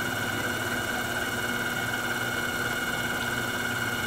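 Small lathe running steadily with a constant high whine and motor hum, as a turned wooden sphere is buffed against quadruple-zero steel wool.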